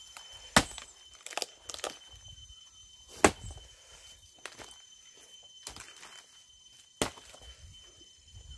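Firewood being chopped with a hand blade: about five sharp chops into a wooden log, the loudest about half a second in and about three seconds in, and the last about seven seconds in.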